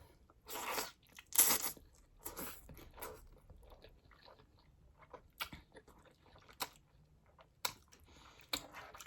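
A person chewing crunchy food up close to the microphone, with irregular crunching bites that are loudest in the first two seconds and then lighter.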